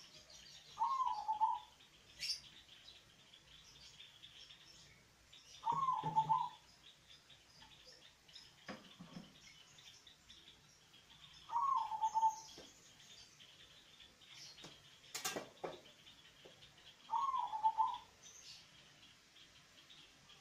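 Zebra dove (perkutut) cooing its song, four phrases about six seconds apart. Faint high chirping runs in the background, and a single sharp click comes about fifteen seconds in.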